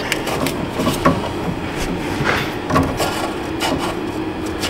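Irregular plastic clicks and rustling as an engine-bay wiring harness and its plastic connector are handled, over a steady low hum.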